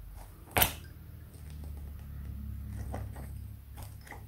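Lace bobbins knocking together once in a sharp click during bobbin lacemaking, followed by soft rubbing of hands on the lace pillow and a few faint light taps.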